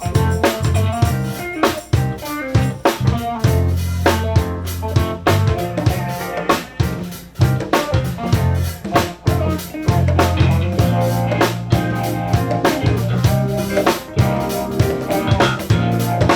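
Live band playing during a sound check: drum kit keeping a steady beat with bass drum and snare hits, over bass and electric guitar.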